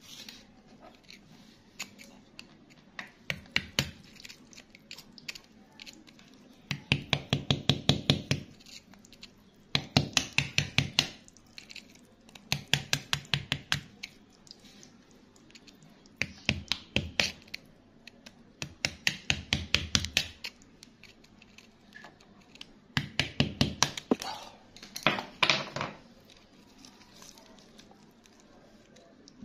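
A wooden stick scraping and digging in wet, gravelly mud around a stone, in about eight short bursts of quick scratchy strokes every few seconds.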